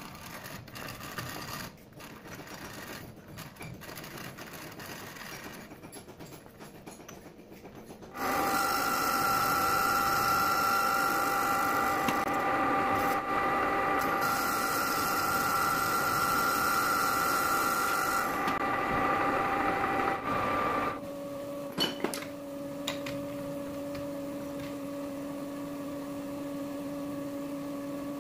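Metal lathe starting up about a third of the way in and running with a steady whine, while a boring tool cuts an aluminium pulley held in the chuck; a high cutting hiss comes in two stretches. Before that there are scattered clicks and knocks. Near the end the spindle stops, leaving a lower steady hum and a couple of sharp knocks.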